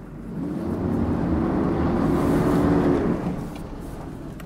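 Diesel farm pickup truck's engine revving: the pitch climbs about half a second in, holds for a couple of seconds, then eases back down near the end.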